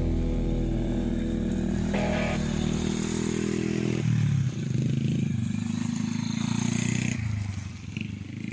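Small underbone motorcycle (kapcai) engine running, its pitch shifting about four seconds in and dropping away near the end.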